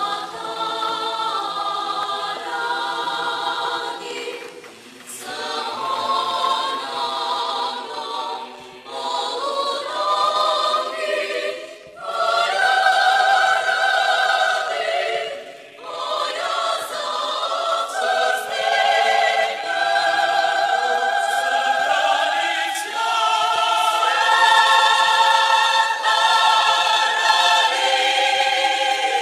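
A choir singing without accompaniment, in long held phrases with brief pauses between them.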